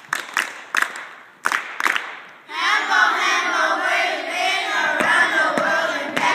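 Hambone body percussion: a handful of sharp hand slaps in the first couple of seconds. After about two and a half seconds, a group of children's voices comes in loudly, chanting and shouting together.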